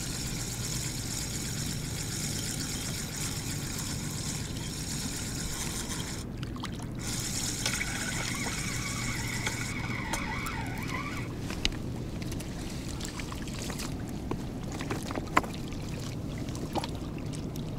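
Spinning reel being cranked steadily, winding in line with a small bream on, its gears giving a continuous whirring hiss that breaks off briefly and then stops about ten seconds in. After that come a few sharp clicks as the fish is brought to the stones at the water's edge.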